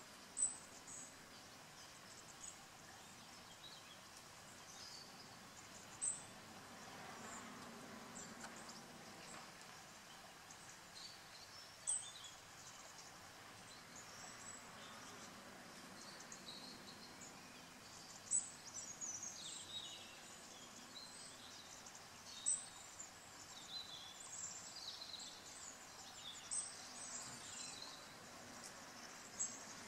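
Faint outdoor ambience of small birds chirping and calling, with a short sharp high chirp standing out about every six seconds.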